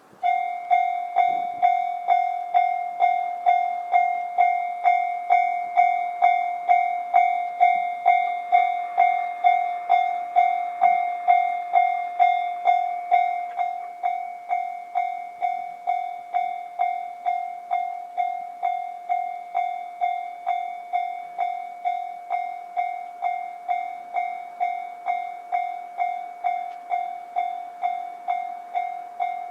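Japanese railway level-crossing warning bell starting suddenly and ringing a steady repeated electronic clang, about one and a half strokes a second, the signal that a train is approaching. It drops in volume about halfway through.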